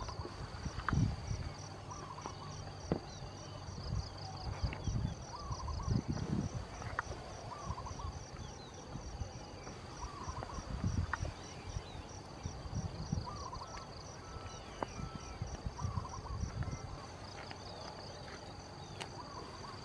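Field insects trilling steadily: a high, pulsing tone of about three pulses a second, with scattered low thumps.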